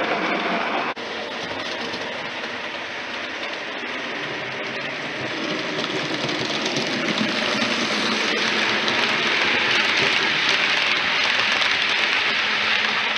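Model railway train running over the layout's track: a steady rushing of wheels on rail with motor hum. It breaks off briefly about a second in, then grows louder as a train draws near and its coaches pass close.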